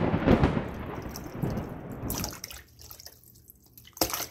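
Hands washing raw meat in a plastic basin of water: loud splashing and sloshing for about the first two seconds, then softer drips and small splashes, with another short splash near the end.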